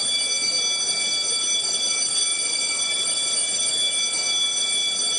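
A steady, high electronic ringing tone like an alarm, several pitches held together over a hiss, with no rise or fall.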